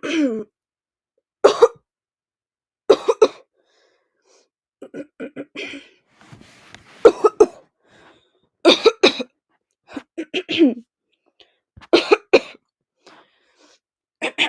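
A girl repeatedly clearing her throat with coughs, in short bursts of one or two sounds about every second and a half.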